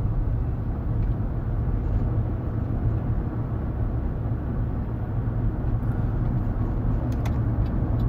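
Steady low rumble of a 2008 Chevy Tahoe driving: engine and road noise, even throughout.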